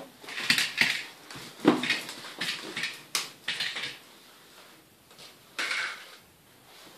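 Plastic toy cars clicking and clattering as they are handled, pushed and knocked together: a run of irregular short knocks, with a longer rustling clatter near the end.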